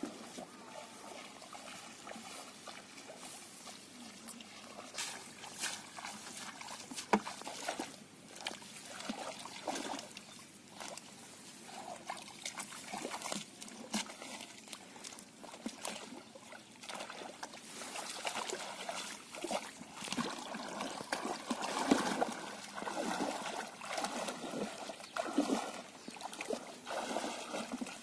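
Shallow muddy water splashing and trickling as feet wade through it and hands work in it, irregular and uneven, with a few sharp knocks.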